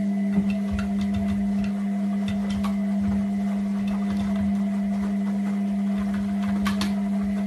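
Front-loading washing machine running with a steady hum, while a kitten's paws tap lightly on the glass door now and then.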